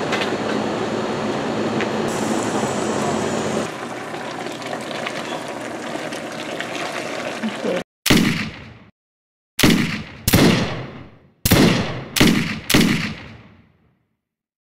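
About eight seconds of steady rushing noise. It then cuts to six gunshot sound effects, each a sharp crack with a long fading tail, fired at irregular gaps over about five seconds.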